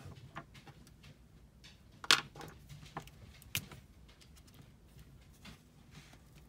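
Plastic dual-tip markers being handled on a wooden desk, one picked up and uncapped, giving a few sharp plastic clicks; the loudest is about two seconds in, with two more near three seconds and three and a half seconds.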